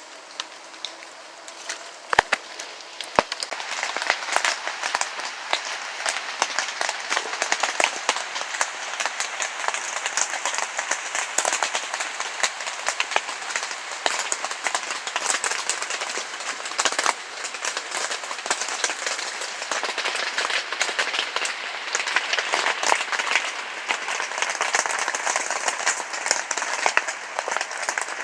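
Heavy rain hitting tarps over a tent: a dense crackle of many drops that gets heavier a few seconds in.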